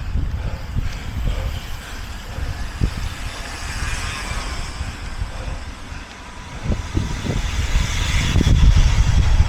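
Wind rumbling on the microphone and a road vehicle passing, growing louder near the end.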